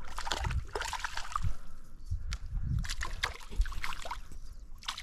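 Shallow stream water splashing and sloshing in irregular bursts as a small brook trout on a tenkara line is drawn in and scooped into a landing net.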